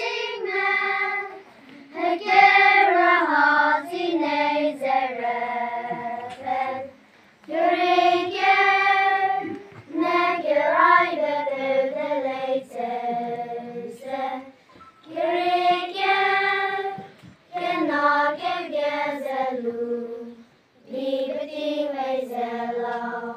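Children singing a song without accompaniment, in phrases of a couple of seconds each with short breaks for breath between them.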